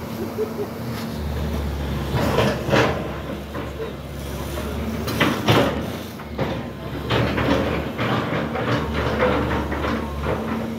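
Demolition excavator's diesel engine running steadily, with several bursts of clattering as brick and timber debris is shifted by its claw.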